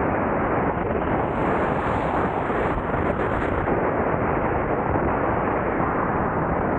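Steady, heavy wind noise buffeting the camera microphone, from riding an electric unicycle at road speed.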